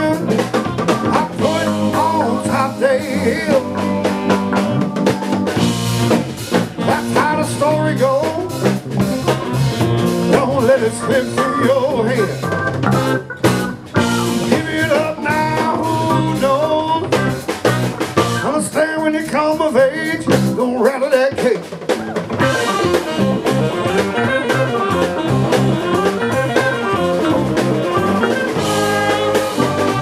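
A band playing a song live, with a drum kit keeping a steady beat.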